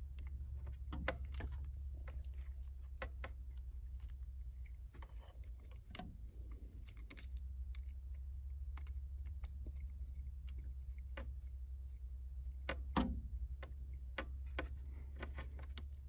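Irregular small metallic clicks and taps as a Phillips screwdriver works the terminal screws of a toggle switch and crimped ring terminals are fitted onto its terminals, with a louder cluster of clicks near the end.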